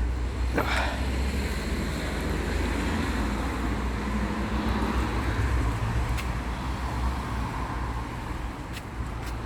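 Strong wind buffeting the microphone: a steady low rumble that swells and eases in gusts, with a few faint clicks.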